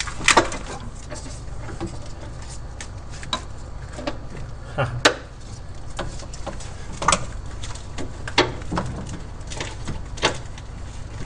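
Scattered knocks and clinks of metal as an intake manifold is lowered onto a V8 engine's valley over guide pins. The sharpest knocks come just after the start and about five seconds in, over a low steady hum.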